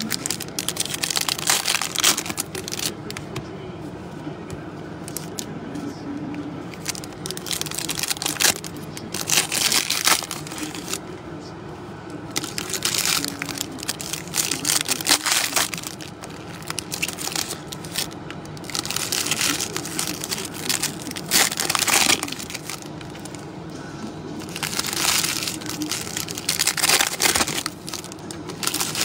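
Foil wrappers of trading-card packs crinkling and tearing open, with cards being handled and shuffled in irregular bursts.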